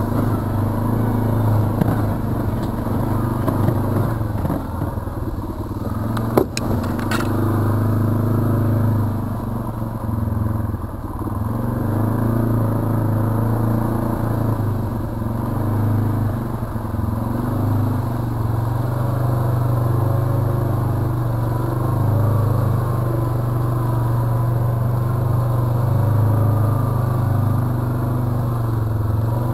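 Arctic Cat ATV engine running steadily while under way, its pitch rising and falling a little with the throttle. Two sharp knocks a little after six and seven seconds in.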